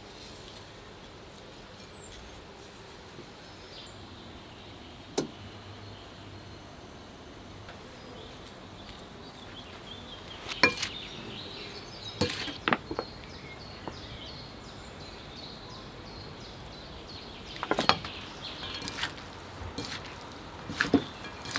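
Scattered short, sharp knocks and clinks of kitchen utensils against a metal bowl and a wooden board, over a steady faint outdoor hiss. The knocks come in two clusters, the last near the end as two wooden spoons toss a salad in the bowl.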